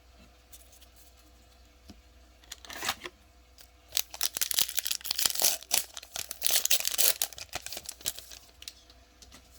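Wrapper of a baseball trading-card pack being torn open and crinkled: a short rip about three seconds in, then a few seconds of busy crackling and tearing as the pack is opened, fading out near the end.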